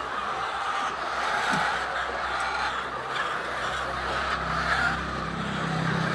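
A large flock of hens in a poultry house calling and clucking together in a dense, continuous din. A low steady hum comes in underneath about four seconds in.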